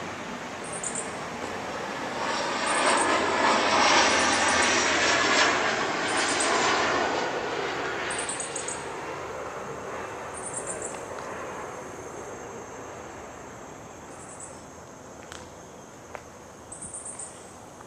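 Engine noise of something passing by: it swells over a couple of seconds, is loudest about four to six seconds in, and fades away over the next several seconds. Short high chirps repeat every second or two throughout.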